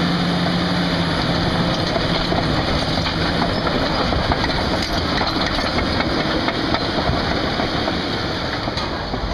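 Heavy vehicle engine running steadily with a rough mechanical clatter. A low steady hum in it fades out a couple of seconds in.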